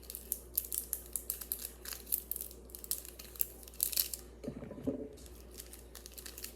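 Plastic Wacky Track fidget links clicking and snapping as they are twisted and fitted together, a quick irregular run of small clicks.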